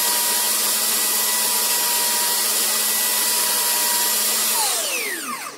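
Belt sander running steadily with a high whine while a piece of oak is held against its moving belt. Near the end the motor winds down and its whine falls in pitch.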